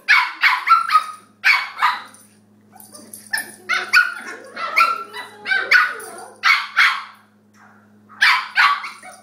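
Puppies barking during rough play: short barks in quick runs, with a brief lull about seven seconds in.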